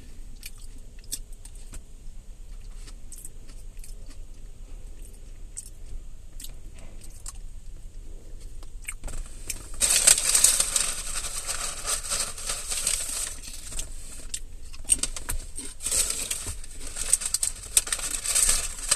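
Quiet chewing with faint clicks, then about ten seconds in a loud crinkling, rustling handling noise close to the microphone as a molded-fiber takeout bowl is lifted and held up, coming and going in patches.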